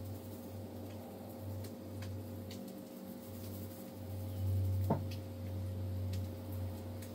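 A low steady hum that swells and fades every second or two, with faint scattered ticks and one brief sharp sound about five seconds in.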